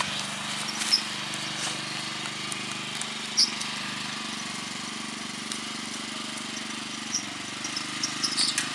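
An engine running steadily, a low even hum, with a few short high chirps over it.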